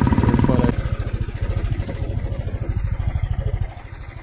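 Royal Enfield Thunderbird 350's single-cylinder engine running on the move, an even, quick beat of firing pulses. It drops in level about a second in and sinks lower near the end.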